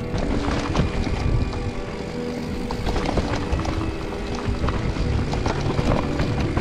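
Mountain bike riding over a rough, stony trail, with many short rattles and knocks from tyres and bike over the rocks. Background music with sustained notes plays over it.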